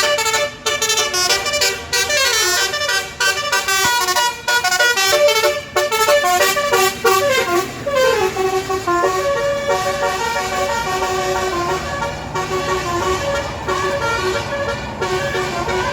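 A bus's basuri telolet horn, an electric musical horn, playing a loud, continuous melody of quickly changing notes. About eight seconds in there is a falling glide, then steadier held tones.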